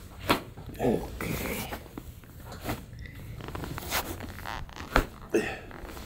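Joint cracking from the upper back during a side-lying manipulation: a few short sharp clicks and pops, the loudest one about five seconds in.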